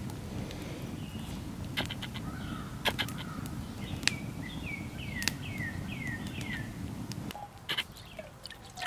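Wood campfire burning and crackling, a low rustle with sharp pops every second or so. A bird sings a run of about six quick falling chirps in the middle. The fire's rustle stops abruptly about seven seconds in, leaving a few light clicks.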